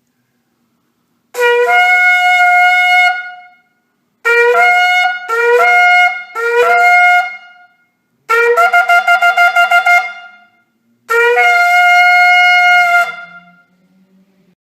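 A ram's-horn shofar blown in the traditional Rosh Hashanah sequence: a long blast (tekiah), three shorter broken blasts (shevarim), a rapid run of about nine staccato pulses (teruah), and a final long blast (tekiah). Each blast starts on a lower note and jumps up to a higher one, with a short echoing fade after it.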